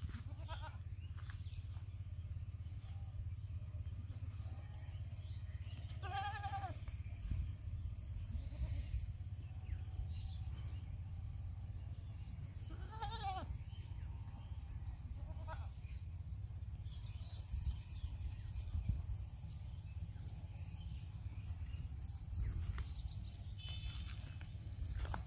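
Young goats bleating now and then, with short high calls, the two loudest about six and thirteen seconds in, over a steady low rumble.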